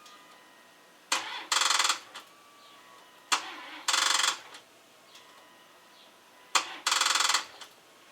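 Dodge Durango's starter solenoid tried three times: each turn of the key gives a sharp click, then a brief burst of rapid chattering clicks, and the engine does not crank. This is the sign of a battery too flat to turn the starter.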